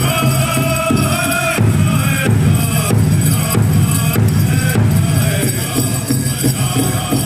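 Powwow drum group performing: a big drum struck in a steady beat with singers chanting a high-pitched song over it.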